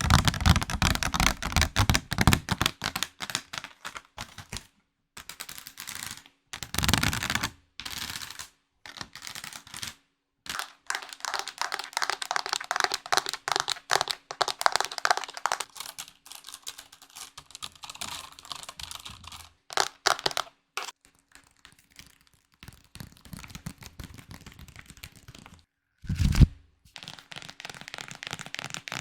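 Rapid close-up tapping and clicking, as ASMR trigger sounds, in several stretches broken by brief silences, with a short louder burst near the end.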